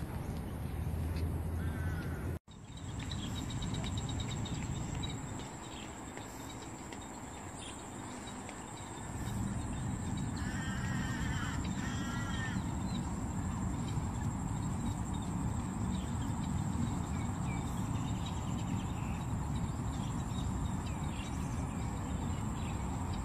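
Outdoor park ambience: a steady low rumbling noise under a thin, steady high-pitched whine, with a crow cawing several times in quick succession around the middle. The sound drops out for an instant early on.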